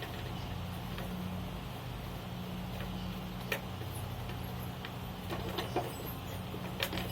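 A steady low engine hum with a few short, sharp metallic clicks and knocks during the tyre change, the clicks bunched in the second half.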